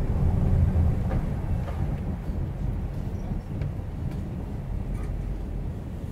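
Low engine rumble of a city bus close alongside, loudest in the first second and then fading, over the steady low road noise of a car driving slowly.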